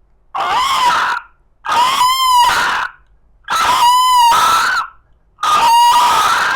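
A man imitating an animal call with his voice: four loud, high-pitched calls of about a second each, with short pauses between them.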